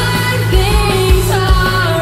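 Live pop-rock band playing with a woman singing the lead vocal through the PA: her sustained, gliding sung notes ride over drums and bass with a steady beat of about two pulses a second.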